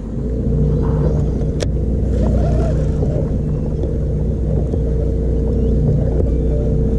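A bass boat's electric trolling motor runs steadily, a low hum with a higher whine above it, starting up right at the beginning.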